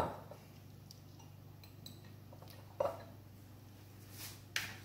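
A few clinks of metal cookware being handled: a sharp one at the start, another about three seconds in and a third near the end, over a low steady hum.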